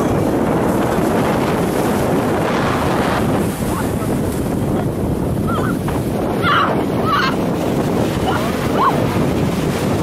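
Shallow surf breaking and washing around waders, with heavy wind buffeting the microphone. A few short high-pitched cries come through about two-thirds of the way in.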